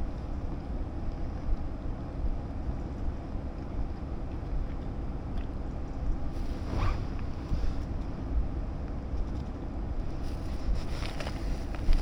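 Wind buffeting the microphone: a steady low rumble with gusts. A short higher-pitched sound rises briefly about seven seconds in.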